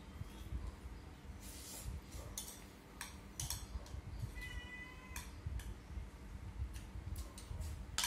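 Metal spoon clinking and scraping against a ceramic rice bowl while eating, a few scattered clicks. About halfway through, a short steady high-pitched cry lasting under a second.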